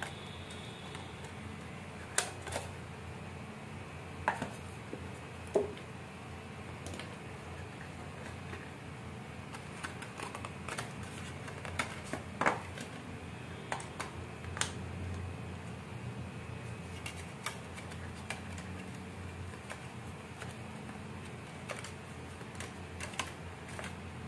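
Scattered light clicks, taps and rustles of the AirPods Pro's cardboard box and paper inserts being handled and pulled apart, with a few sharper knocks, over a steady low room hum.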